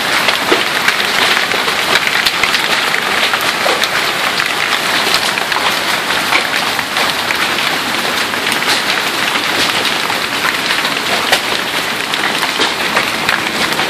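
Hailstorm: hailstones and rain pelting down in a loud, dense, steady hiss, with many sharp separate hits of hailstones striking hard surfaces.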